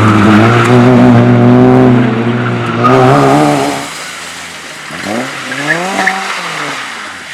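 Car engine running hard under load at a drift and slalom session, holding a fairly steady high note. About four seconds in it drops away and becomes quieter, then revs up and down several times.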